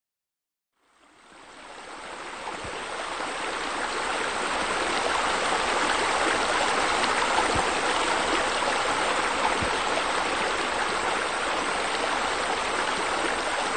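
Steady rush of running, splashing water. It fades in from silence about a second in and builds to full level over the next few seconds.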